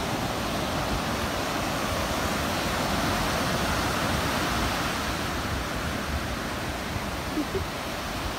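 Ocean surf breaking and washing up the shore in a steady rush that swells a little in the middle.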